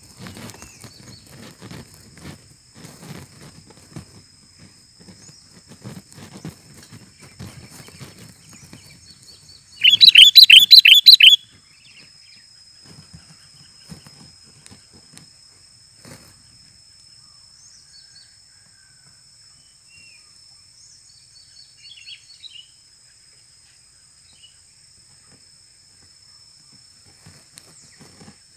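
Sooty-headed bulbul giving a loud, fast run of repeated chattering notes for about a second and a half, roughly ten seconds in. Before it comes light rustling; after it, only faint scattered chirps over a steady high-pitched whine.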